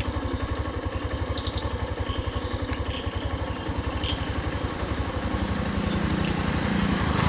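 Hero Xtreme 160R's single-cylinder engine idling steadily, a fast, even low putter; a steady low hum joins about five seconds in.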